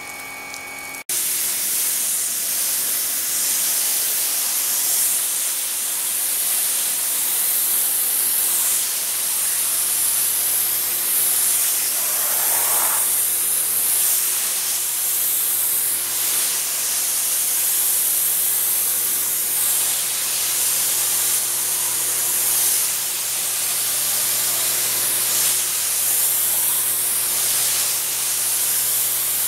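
Water jet from a SunJoe SPX6000C 40-volt cordless pressure washer spraying vinyl house siding: a loud, steady hiss that swells and fades as the spray sweeps across the wall. It opens with about a second of the electric pump's whine before the spray comes in suddenly.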